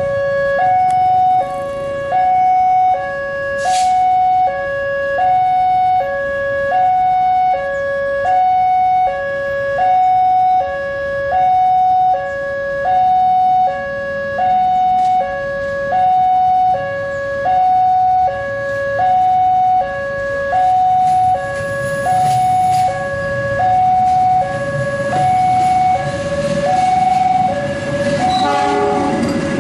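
Railway level-crossing warning alarm sounding an electronic two-tone hi-lo signal that alternates evenly, about one cycle every one and a half seconds. Train rumble builds underneath and is loudest near the end as the coaches pass close by.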